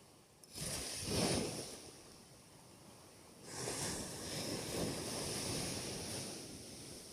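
Sea waves washing onto the shore in two surges, about half a second in and again around three and a half seconds in, each swelling and then fading away.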